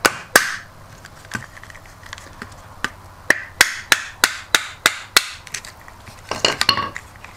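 Hammer gently tapping the side of a vintage Battle Armour Skeletor plastic action figure resting on a wooden board: sharp taps about three a second, striking the arm peg to crack the glue so the two body halves spring apart. Near the end comes a short rattling clatter of plastic as the loosened figure is handled.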